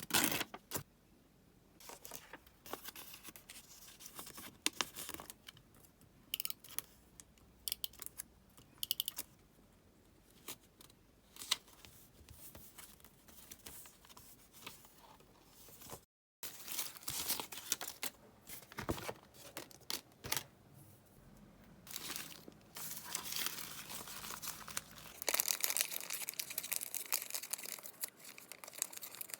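Paper being handled at a desk for scrapbook diary decorating: scattered rustles, crinkles and light taps, with a denser stretch of paper tearing and crinkling near the end.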